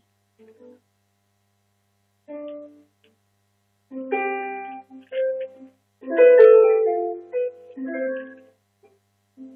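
Electric keyboard played softly: a few sustained notes and chords with gaps between them, fullest about six seconds in.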